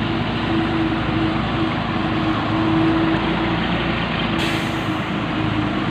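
Steady engine and road noise from a motorcycle riding in town traffic close beside a truck, with a steady droning tone. A brief hiss comes about four and a half seconds in.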